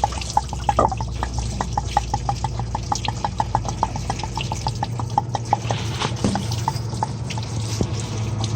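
Engine coolant dripping fast into a bucket from the gap behind a partly pulled water pump, about five drops a second, thinning out after about five seconds. A steady low hum runs underneath.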